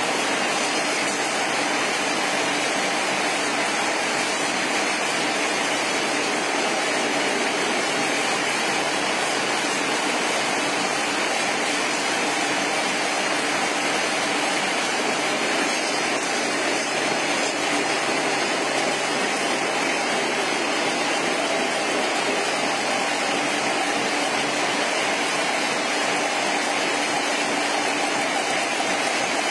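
Aerosol tin can vacuum leak tester and its can-handling line running, a steady mechanical hum under an even hiss, with no pauses or changes.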